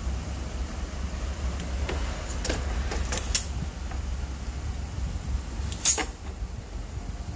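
Gas stove burner running with a steady low rumble under a lidded pot, with a few sharp clicks about two to three seconds in and a louder click near six seconds.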